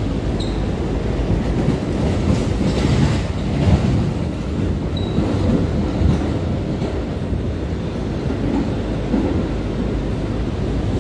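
Ride inside an R179 subway car running at speed: a steady rumble of steel wheels on the rails, with a few clacks over rail joints around two to four seconds in.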